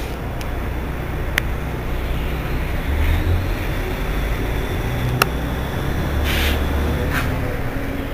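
Irisbus Citelis 18 articulated city bus standing with its engine idling: a steady low rumble, with a couple of sharp clicks and a short hiss about six seconds in.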